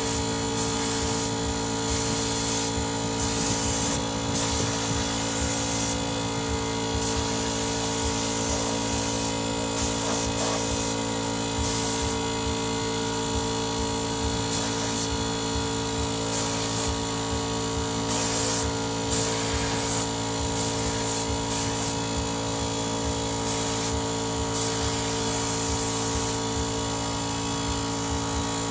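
Motomil 24-litre air compressor running steadily at constant pitch, with short bursts of high hiss coming and going throughout.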